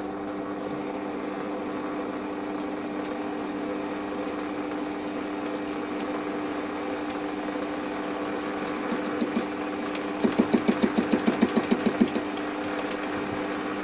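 Warco WM180 lathe running with its four-jaw chuck spinning, a steady machine hum. Near the end comes a rapid run of light regular knocks, about six or seven a second.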